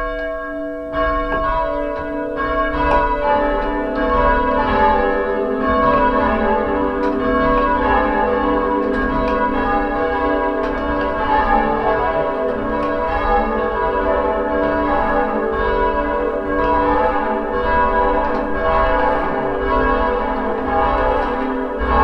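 Church tower bells rung full circle by a band pulling bell ropes: a quick, continuous run of loud strikes whose tones overlap and ring on, in change ringing, heard from the ringing room below the bells.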